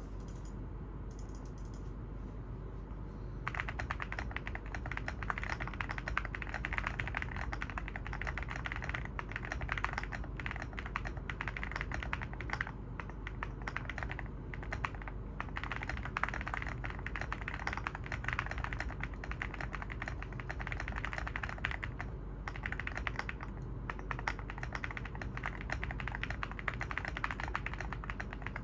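Typing on an Evoworks EVO80 mechanical keyboard with a polypropylene (PP) plate and Oat linear switches: rapid, continuous keystrokes starting about three seconds in, with a few brief pauses.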